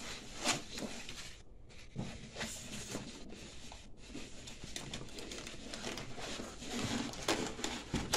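Plastic wrapping crinkling and packaging rustling as hands move parts about in a foam-lined cardboard box, with scattered small knocks and rubs.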